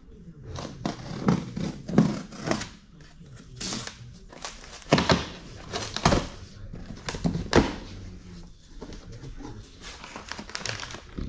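Packing tape being ripped off a cardboard box in several sharp strips, then the flaps pulled open and crumpled packing paper rustling, softer after about eight seconds.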